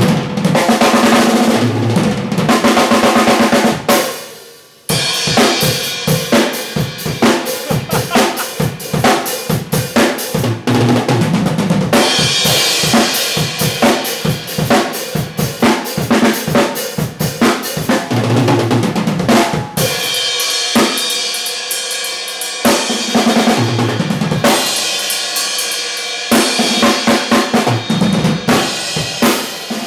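Drum kit played solo in a fast fusion style: rapid snare and tom fills over bass drum with cymbals ringing, breaking off for a moment about four seconds in before carrying on.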